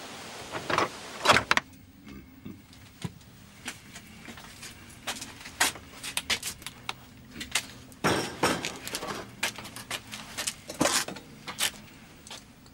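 A door shuts with a couple of sharp knocks about a second in, cutting off a steady rain-like outdoor noise. After it come scattered light knocks and clinks at irregular moments.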